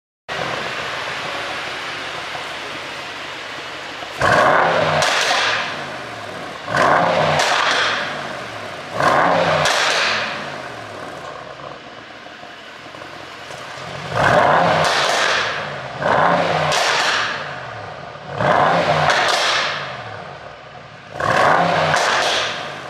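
Mercedes-AMG GT63 S 4-door's twin-turbo V8 idling, then blipped to high revs seven times, with exhaust pops and crackles from a 'pop sound' ECU tune as the revs fall back.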